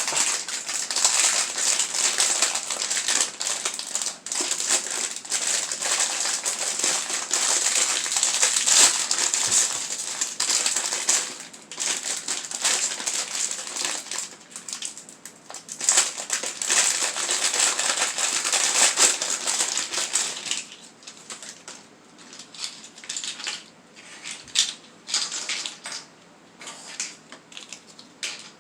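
Hands squeezing and crushing kinetic sand close to the microphone, a dense gritty crunching made of many small strokes. After about twenty seconds it thins to sparser, quieter squeezes.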